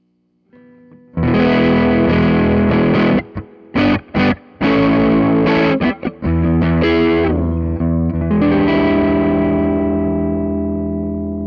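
Ibanez RG550 electric guitar played through an MXR Custom Badass '78 Distortion pedal: loud distorted chords start about a second in, then a few short chord stabs cut off with gaps between them, then a final chord left ringing and slowly fading.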